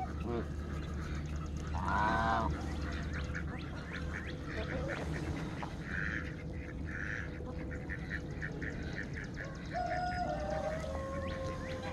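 Domestic geese honking and ducks quacking in a mixed backyard flock, with one loud honk about two seconds in and more calls near the end.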